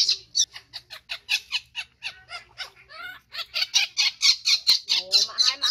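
Baby macaque screaming in rapid, high-pitched cries, about five a second, in distress at being washed. Near the end the cries turn into drawn-out squeals that bend in pitch.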